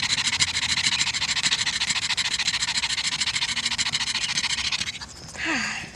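Pug puppy panting rapidly and hard through an open mouth, out of breath after playing; the panting stops about five seconds in.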